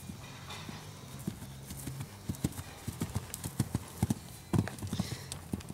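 Horse's hooves thudding on a dirt-and-grass arena at a canter, in a quick, uneven rhythm. The loudest cluster of hoofbeats comes about four and a half seconds in, as the horse lands after clearing a rail jump.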